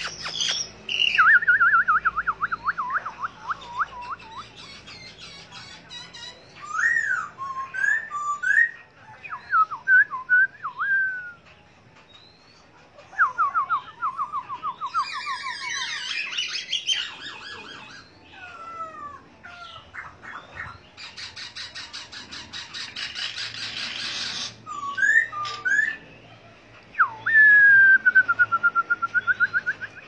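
A caged songbird singing a long, varied song: rapid trills of repeated down-slurred notes, short whistled phrases rising and falling, and a harsh, rasping stretch about two-thirds of the way through. It ends with a long, fast trill.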